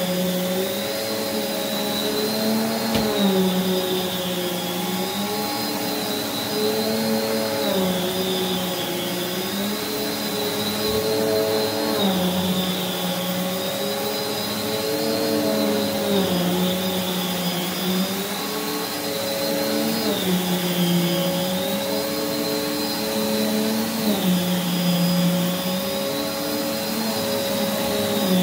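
Prolux X8 Elite backpack vacuum with its EBK360 power nozzle running over carpet. A steady motor whine whose pitch sags and recovers about every four seconds as the nozzle is pushed back and forth.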